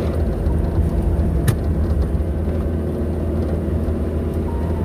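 Car engine and road noise heard from inside the cabin while driving, a steady low rumble. A single sharp click sounds about a second and a half in.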